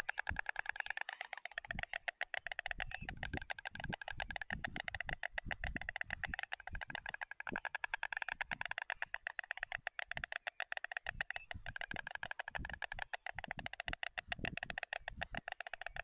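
A pair of white storks bill-clattering together in a long, rapid wooden rattle: the greeting display at the nest. Scattered low thumps sound underneath.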